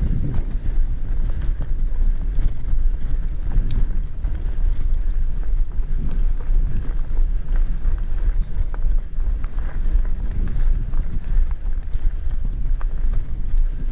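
Wind rushing over a head-mounted camera's microphone during a fast trail ride: a steady, loud low rumble with scattered small clicks and rattles.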